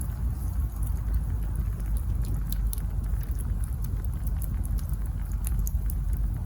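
Wood campfire burning: a steady low rumble from the flames, with scattered small crackles and pops from the burning logs.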